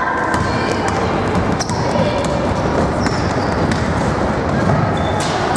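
Basketball being dribbled and bouncing on the court during play, with scattered sharp knocks over a steady din of voices.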